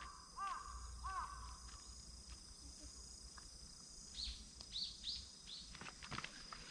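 Quiet outdoor ambience of birds and insects: two short arched chirps near the start, then a run of about four quick, high falling notes about four seconds in, over a steady high insect drone.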